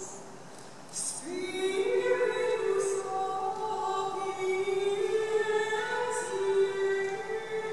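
A woman cantor chanting an antiphon solo and unaccompanied. After a short pause she begins a new phrase about a second in, sliding up into its first note, then sings sustained notes moving by small steps.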